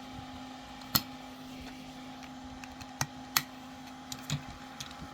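Sharp plastic clicks and taps, a handful of them spaced irregularly, as wheels are pushed onto a small 3D-printed and Lego model car.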